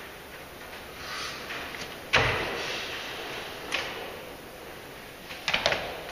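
A 120 kg man landing a box jump on a stack of wooden pallets: one loud, deep thud about two seconds in, then a lighter knock. Near the end comes a quick cluster of knocks as he gets back down to the floor.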